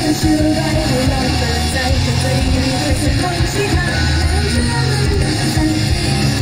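Loud amplified pop-rock song with singing over heavy bass and guitar, played at a live idol stage show.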